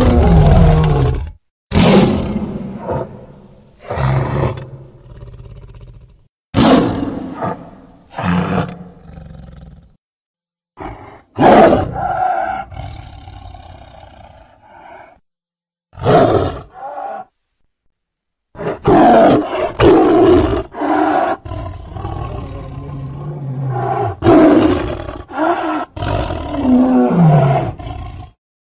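Giganotosaurus creature sound effects: a series of loud roars, each starting suddenly and trailing off, separated by moments of silence, with a near-unbroken run of roars and growls through the last third.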